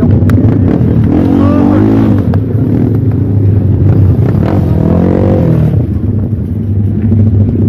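Two-stroke racing kart engines running over a steady low drone, with two passes about a second and about five seconds in, each rising then falling in pitch.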